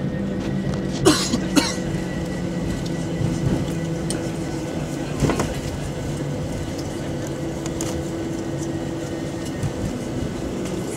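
Steady mechanical hum and rumble heard from inside a vehicle, with a few short clicks about a second in, again half a second later, and around five seconds in.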